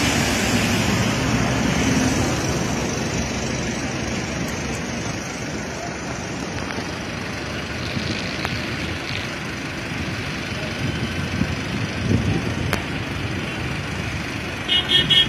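Steady road traffic noise: an even rumble and hiss of vehicles on a highway, a little louder at the start.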